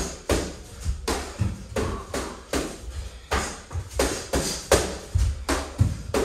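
Boxing-gloved punches smacking focus mitts in quick combinations, about two to three sharp hits a second, with low thuds of bare feet on a wooden floor.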